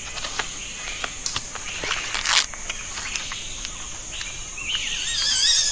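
Tropical forest ambience: a steady high-pitched insect drone with scattered small clicks and rustles. Near the end a bird gives a warbling, wavering call.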